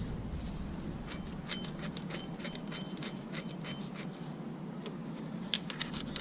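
Light metallic clicks and clinks, a rapid irregular run of them with a faint ring, then a few sharper clicks near the end: the metal parts of a brake caliper piston wind-back tool being handled and fitted.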